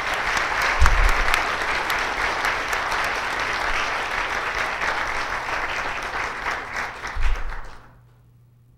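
Audience applauding, a dense steady clapping that dies away near the end. Two low thumps sound within it, about a second in and again shortly before it fades.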